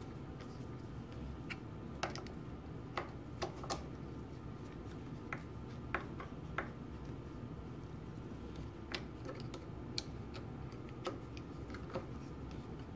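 Irregular light metallic clicks as a screwdriver works the two screws holding the knife carrier on a Linotype knife block, tightening them down, over a low steady hum.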